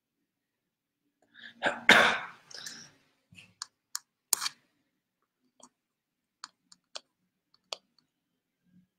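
A sudden loud, rough burst about two seconds in, then a second shorter burst a couple of seconds later, followed by a few sharp, separate clicks over the last few seconds.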